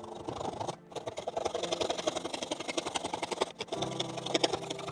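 A blunt hand back saw rasping through plastic cable trunking in a mitre block, in quick back-and-forth strokes with brief breaks about a second in and again past three seconds. A steady low hum joins near the end.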